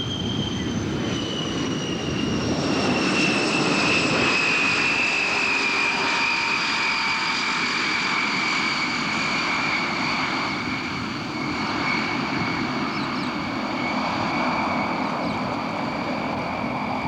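Aircraft engine running, with a high whine that falls slowly in pitch over the first several seconds, then holds steady.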